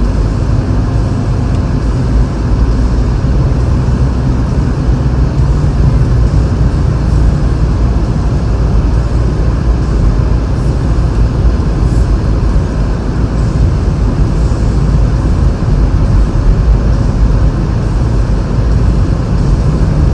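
Steady low rumble inside a car driving slowly on a snow-covered road: the tyres rolling through snow, with the heater fan blowing.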